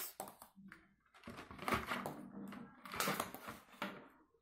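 Plastic felt-tip markers clicking and rattling as they are pulled out of a cardboard marker box and handled, an irregular string of knocks and rustles.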